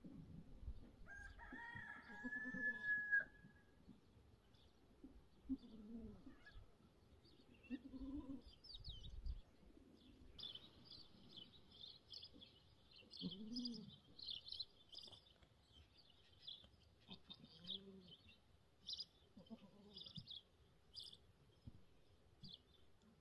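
A rooster crows once, about a second in. After that come short, low, arching calls every few seconds from a doe goat straining in labour, and from about ten seconds in small birds chirp busily.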